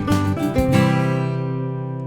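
Background music on acoustic guitar: a few quick strums, then a final chord about three-quarters of a second in that rings out and slowly fades.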